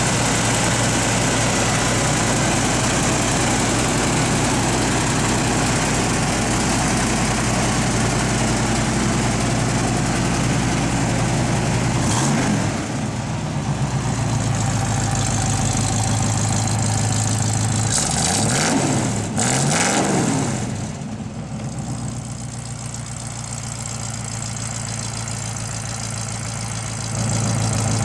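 1979 Chevrolet K10's 350 cubic-inch V8 idling steadily, blipped up in revs once about twelve seconds in and twice more in quick succession a few seconds later, each time dropping back to idle.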